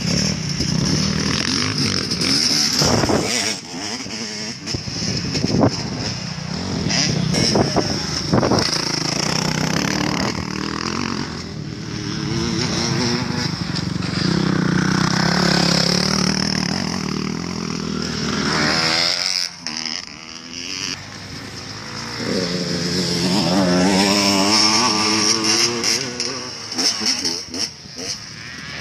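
Motocross dirt bike engine revving through the gears as it rides the track, its pitch repeatedly climbing and dropping. It grows loudest in the middle and again after about twenty-three seconds as the bike comes near.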